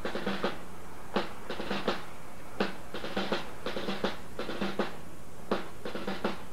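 Marching-band snare drums beating a steady cadence, sharp strokes in groups with a strong accent about every second and a half.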